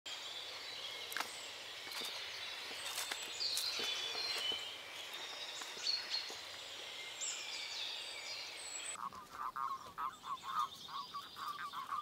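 Outdoor birdsong, with many small birds chirping and whistling over one another. About nine seconds in it cuts to an amphibian croaking in rapid, uneven pulses.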